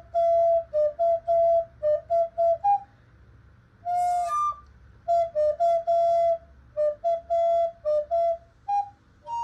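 Alto recorder playing a melody solo in short, separately tongued notes that move among a few close pitches. The notes break off about three seconds in, then resume with a longer note and another run of quick notes.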